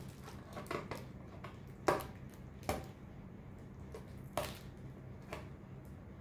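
Fingernails picking and prying at the tucked flap of a paperboard box, making about half a dozen short, scratchy scrapes and clicks. The loudest comes about two seconds in.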